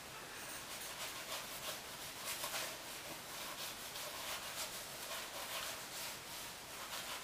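Damp sponge scrubbing acrylic paint onto a gesso-textured canvas: soft, scratchy rubbing in quick repeated strokes, several a second.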